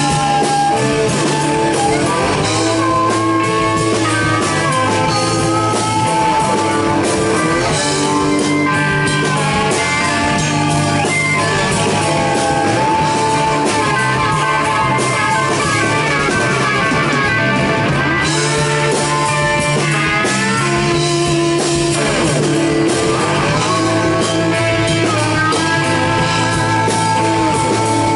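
Live blues rock band playing an instrumental passage: electric guitar, bass guitar and drum kit, with an amplified harmonica carrying bending, held melody lines over the top.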